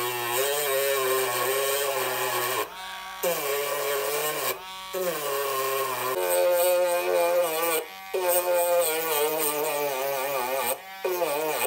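Small handheld rotary tool whining as its grinding stone grinds a flat onto the fan's metal motor shaft. The motor's pitch sags and recovers as the stone bites, and the sound breaks off briefly about four times.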